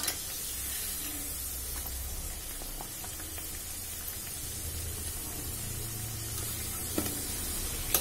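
Puffed urad dal kachoris deep-frying in hot oil in a steel kadai: a steady sizzle. Near the end, two light clicks as the steel slotted spoon touches the pan.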